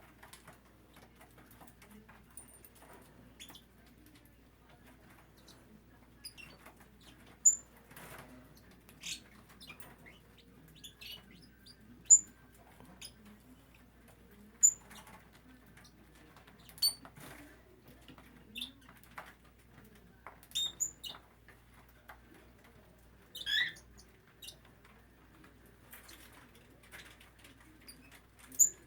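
Small grass parakeets giving short, high single chirps every two or three seconds, over scattered soft rustles, clicks and wing flutters.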